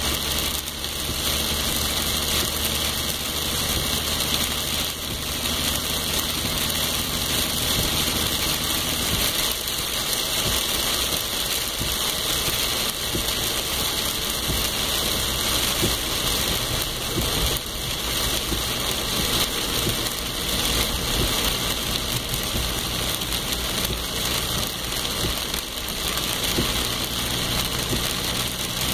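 Steady rain falling, an even hiss with no thunder. Under it a low steady mechanical hum runs for the first third and fades back in near the end.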